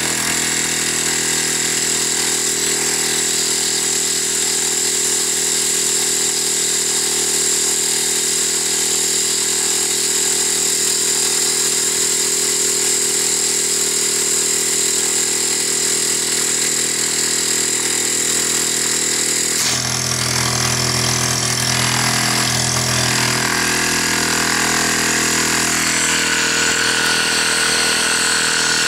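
SCA Outback Devil 12 V direct-drive air compressor running steadily under test, with a steady high hiss of air escaping at the opened check valve instead of filling the tank. Its running note shifts about two-thirds of the way through.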